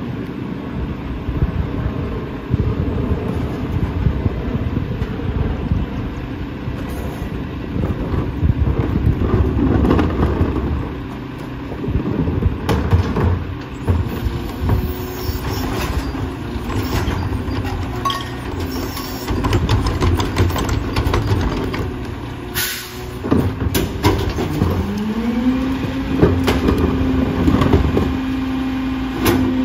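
Rear-loader garbage truck's diesel engine running, with knocks and clatter of cardboard and recyclables being tipped into the hopper. Near the end the engine speeds up to a higher, steady pitch as the hydraulic packer is engaged to compact the load.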